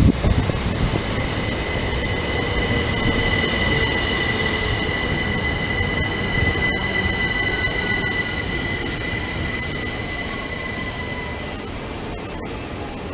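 Electric multiple-unit passenger train pulling into a station platform and slowing, with a steady high squeal as it brakes over the running rumble. In the second half a fainter whine falls in pitch as the train slows.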